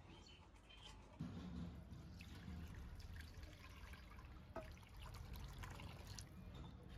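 Milk poured in a steady stream from a metal pot into milk already in an iron wok (karahi), a continuous splashing pour that starts about a second in.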